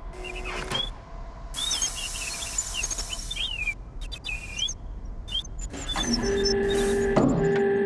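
Edited sound collage: a low traffic-like rumble under chirping birds, with layers of hiss cut in and out abruptly. From about six seconds a loud, steady pitched hum takes over, with a sharp knock just after seven seconds, then everything fades out.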